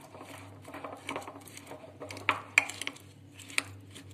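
A spoon stirring chopped walnuts and apricot kernels coated in honey in a small jar: irregular soft clicks of nuts and spoon, with a few sharper clinks against the jar in the second half.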